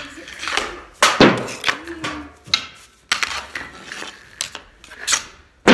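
Hockey sticks and a puck clacking and scraping on a concrete floor: a string of sharp hits, the loudest about a second in and another at the very end, ringing in a small hard-walled room.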